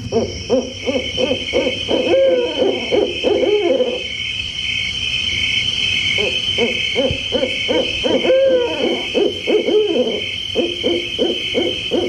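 Recorded sound effect of owls hooting again and again over a steady, pulsing high trill, a spooky night-time cue played through a loudspeaker.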